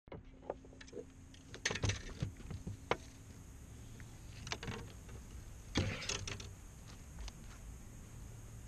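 Fishing rods and tackle being handled on a bass boat's deck: scattered clicks, knocks and light clattering, busiest about two seconds in and again around six seconds.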